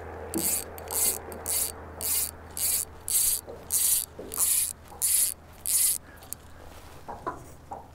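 Fly line being stripped in by hand through the rod guides: a rhythmic run of short hissing rasps, about two a second, that stops about six seconds in.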